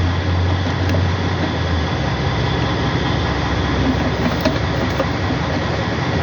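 A steady low mechanical rumble, with a strong low hum that fades out about two seconds in and a few faint clicks.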